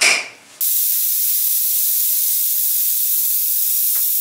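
Stovetop pressure cooker letting out steam in a loud, steady hiss that starts suddenly about half a second in.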